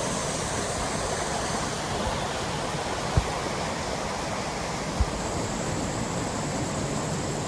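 Roadside waterfall rushing steadily, with two brief low thumps about three and five seconds in.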